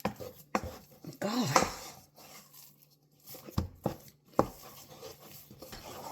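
A cooking utensil knocking against a pot in irregular strokes as stiff, clay-like instant plantain fufu dough is stirred and kneaded over the heat.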